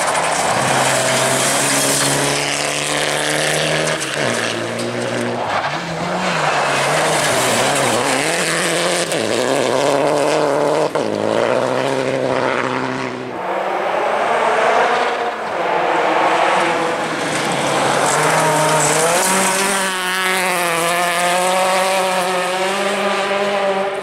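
Rally car engine revving hard on a gravel stage, its pitch climbing and then dropping at each gear change several times over. A steady hiss of gravel and tyre noise runs under the engine.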